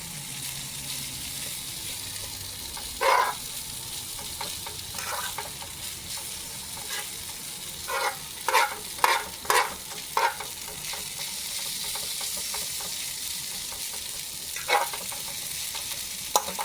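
Chicken fried rice and shrimp sizzling in an electric skillet, stirred in short strokes: once about 3 s in, again about 5 s in, several times around 8 to 10 s, and once near 15 s.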